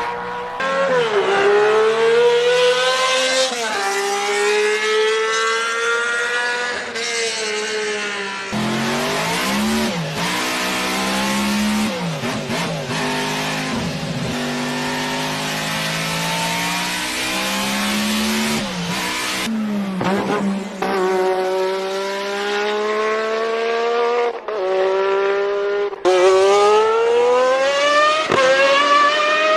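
Formula 1 race car engines at high revs, several recordings cut together, with abrupt changes about eight, nineteen and twenty-six seconds in. Each engine climbs in pitch through the gears and drops back at every upshift.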